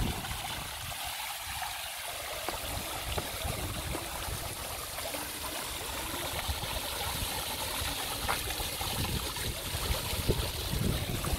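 Water from a tiered stone fountain splashing and trickling steadily into its pools.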